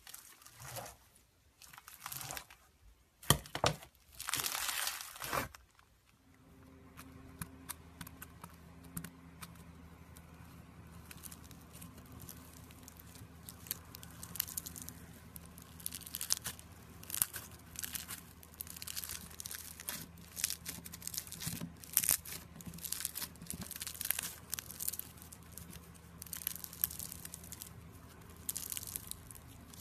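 Pink foam-bead slime (floam) being cut with scissors, crunching in separate bursts. About six seconds in, bead-filled slime is squeezed and pressed by hand, giving many small crackles and pops over a faint steady hum.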